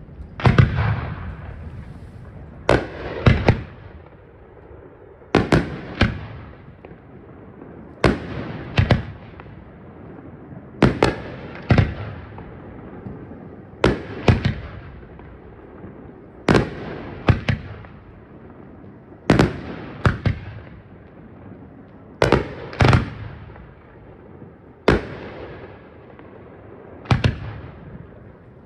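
Fireworks bursting in a regular rhythm: sharp bangs in pairs about half a second apart, a pair roughly every three seconds, each bang trailing off into a fading rumble.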